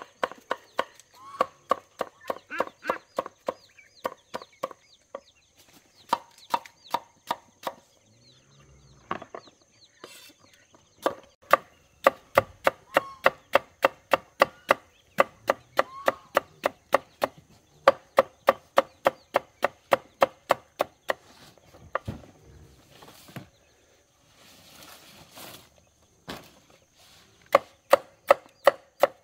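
Rapid, evenly spaced chopping strokes on wood, about three a second, in runs of several seconds with short pauses; each stroke is a sharp knock with a short pitched ring.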